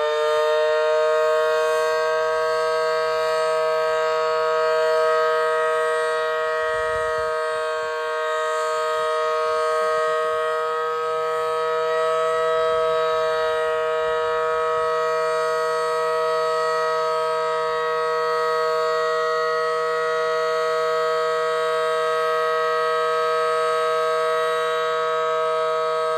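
Federal Sign and Signal Model 5BT outdoor warning siren sounding its steady alert signal: a loud two-note chord held at a constant pitch, with only slight swells in loudness.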